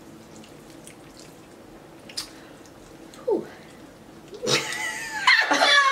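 Faint clicks and scrapes of metal forks against ceramic bowls as noodles are twirled, with a short falling vocal sound about three seconds in. About four and a half seconds in, a woman's voice breaks into a loud, drawn-out vocal reaction that runs on to the end.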